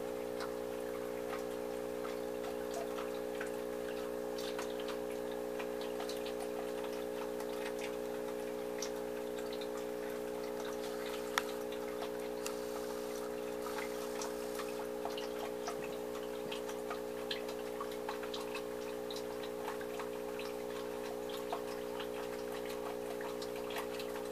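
Aquarium air pump humming steadily, with irregular small clicks and pops of air bubbles from a sponge filter.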